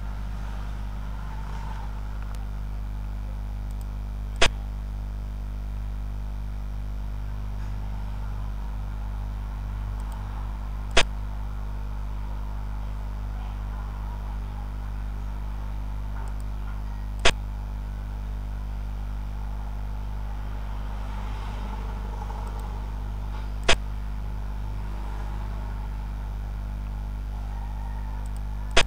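Steady electrical hum, broken by sharp single clicks about every six seconds, four of them and a fifth at the very end: the click of a xiangqi piece being placed on the board as each move is played in the replay.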